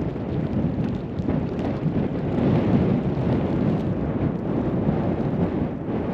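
Wind buffeting the microphone: a steady, rumbling rush of noise that swells and eases with the gusts.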